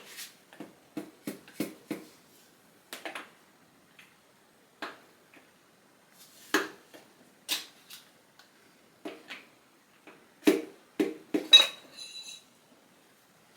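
Metal hand tools and LS1 engine parts clinking and knocking against each other in irregular single strikes, a cluster of louder knocks near the end, the last one ringing briefly with a high metallic tone.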